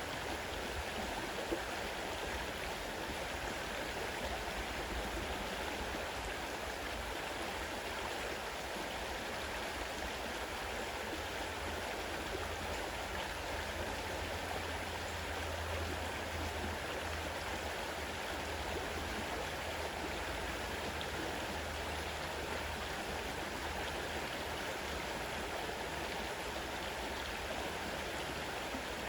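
Fast-flowing river water running with a steady, even rush.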